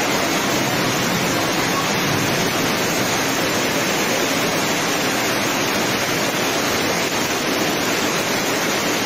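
Heavy tropical downpour pouring onto a flooded street: a loud, steady hiss of rain and water that does not let up.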